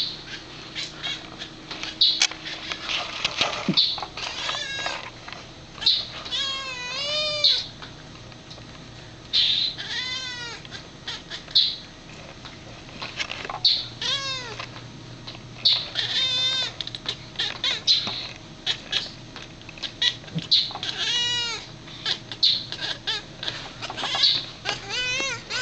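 Domestic cat making weird, baby-like chirping and chattering noises at a bird, in repeated runs of quick rising-and-falling chirps every few seconds, with short high squeaks between them: the excited chatter a cat makes while watching prey it cannot reach.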